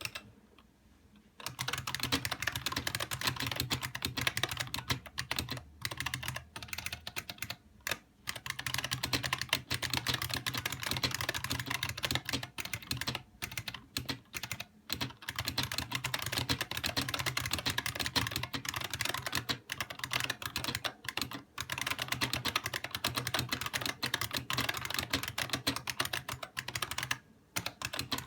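IBM Model M Space Saving Keyboard's buckling-spring keys being typed on fast and continuously, a dense stream of loud key clicks. The typing starts about a second and a half in and breaks off briefly a few times, once near the end.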